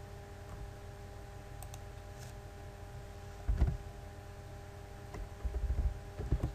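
Computer keyboard keystrokes typing into a browser's address bar: one dull tap about three and a half seconds in, then a quick run of taps over the last second or so. A faint steady electrical hum runs underneath.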